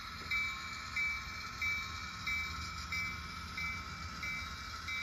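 Locomotive bell from a DCC sound decoder, played through an N scale model locomotive's tiny speaker, ringing steadily at about one and a half strokes a second over a steady hum.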